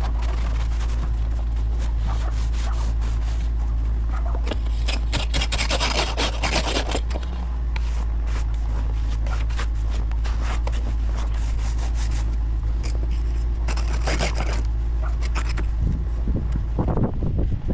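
Car engine idling steadily just after a cold start in freezing weather, with bursts of scraping and rubbing over it, loudest about five to seven seconds in and again around fourteen seconds.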